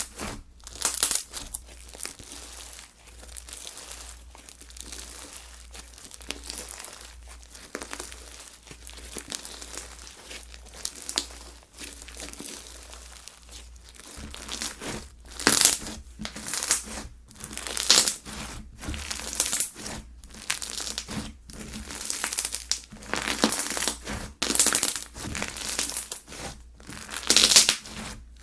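Slime being squeezed, stretched and pressed by hand, giving a crinkly, crackling sound. The bursts grow louder and sharper from about halfway through.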